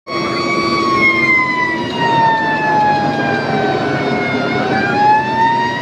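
Fire truck siren wailing, its pitch slowly falling and then rising again about four and a half seconds in, over the truck's engine and road noise.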